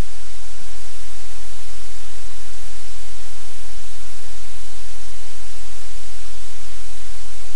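Loud, steady static hiss over a low hum, masking everything else; no dog or movement sounds stand out.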